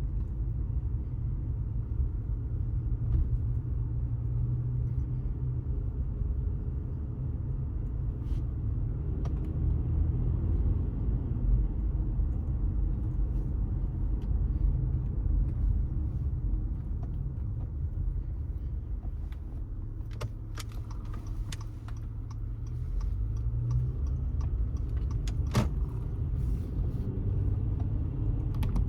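A car driving at low speed: a steady low rumble of engine and tyres on the road. A cluster of sharp clicks and rattles comes about two-thirds of the way through, with one more shortly after.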